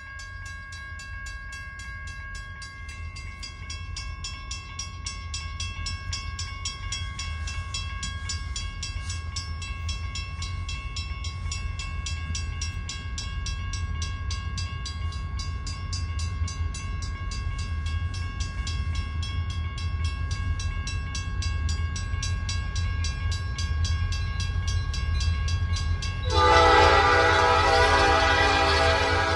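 Railroad grade-crossing bell ringing with evenly repeated strokes over a low rumble that grows louder as a Great Lakes Central Railroad train approaches. About 26 seconds in, the locomotive's air horn sounds one long, loud blast of about three seconds.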